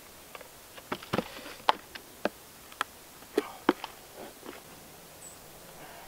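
A pointed tool punching holes through a plastic pail and its lid, making a quick irregular series of sharp clicks and pops during the first four seconds or so.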